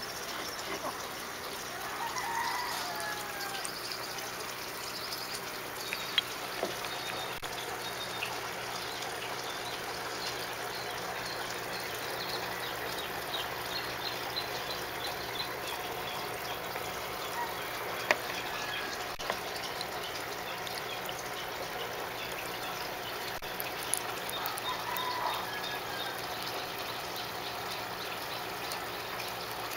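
Steady trickle of running water, with a few short bird calls.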